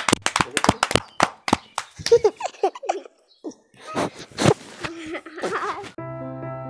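Girls clapping their hands quickly, about five claps a second, then giggling and laughing. Keyboard music with held chords starts near the end.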